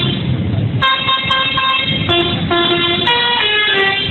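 Multi-tone 'telolet' bus horn playing a quick tune of stepped notes, starting about a second in, over a low rumble.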